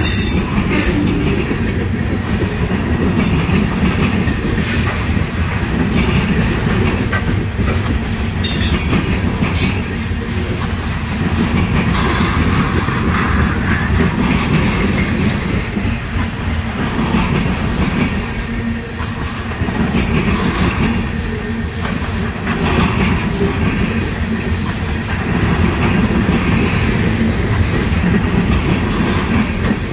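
Loaded trash-train freight cars rolling past at close range: steady noise of steel wheels running over the rails, heaviest in the low end.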